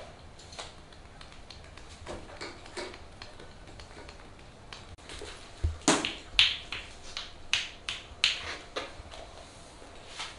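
Massage by hand over a T-shirt: soft rubbing of palms on cloth, then a quick irregular run of about eight sharp slaps as hands pat and strike the client's chest and shoulder.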